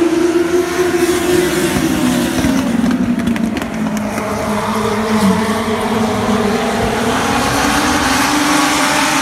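A pack of Legends race cars running on the track, several engines droning together. The pitch falls over the first five seconds or so, holds steady, then rises again near the end.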